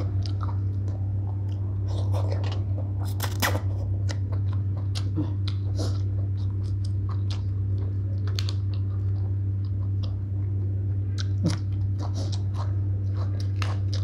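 A person chewing a mouthful of papaya salad (shredded green papaya) with rice noodles close to the microphone: irregular crunches and wet mouth clicks, over a steady low hum.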